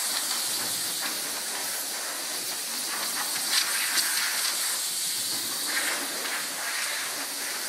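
Compressed shop air hissing steadily from a handheld air blow gun, blowing sanding dust off a freshly dry-sanded surface.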